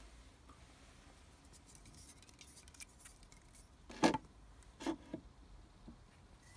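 Handling noises: faint scattered clicks and rustles, with two short, louder knocks about a second apart roughly four seconds in.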